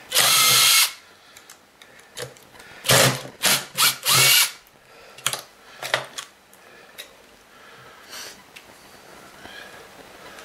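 Cordless drill-driver running screws out of a vacuum cleaner's housing. It runs in one burst of just under a second at the start, then four short bursts about three to four and a half seconds in, followed by a few light clicks of parts being handled.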